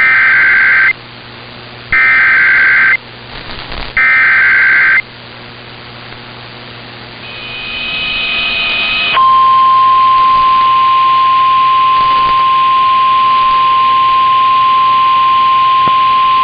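Emergency Alert System SAME header: three one-second bursts of digital data buzz, about two seconds apart. After a few seconds of rising hiss, a steady single-pitch alert tone starts about nine seconds in and holds. This is the NOAA Weather Radio 1050 Hz warning alarm that announces a tornado warning.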